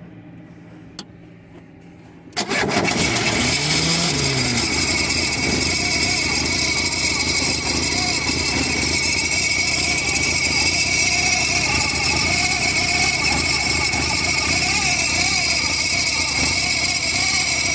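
Volkswagen AP 1.8 engine running with a loud strange noise, a steady high whine over a fast clatter, that comes in abruptly about two seconds in. The owner traced the noise, which came with sparks, to a loose bolt on the freshly rebuilt engine.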